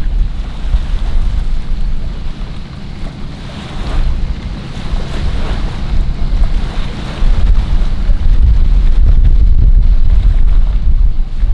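Wind buffeting an outdoor microphone: a loud low rumble that rises and falls in gusts, dipping a few seconds in and growing strongest in the second half.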